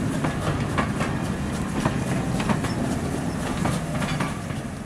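00 gauge model train running along the track: a steady low rumble with irregular sharp clicks as the wheels pass over the rail joints.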